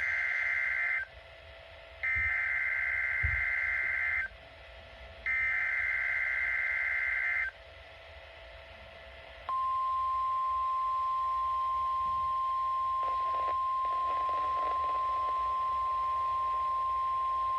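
NOAA Weather Radio Emergency Alert System SAME header: three bursts of harsh digital data tones, each about two seconds long with a second's gap, the first ending about a second in. About two seconds after the last burst the steady single-pitch 1050 Hz warning alarm tone starts and holds, signalling an incoming severe thunderstorm watch.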